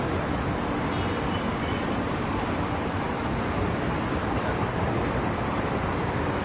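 Steady road traffic noise: a continuous even rush of passing cars and vans.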